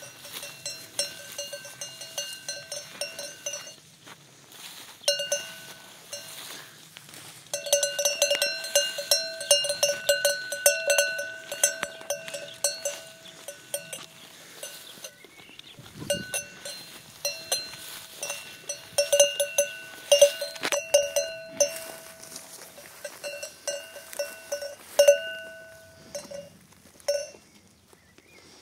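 Bells worn by a flock of sheep clanking irregularly as the animals move, several bells ringing at once. The ringing comes in uneven flurries, busiest about a third of the way in and again past the middle, thinning out near the end.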